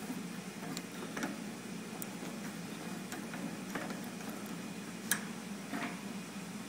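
Scattered light metallic clicks and knocks, the sharpest about five seconds in, from the still door of a Union dry-cleaning machine being handled, over a steady low machine hum.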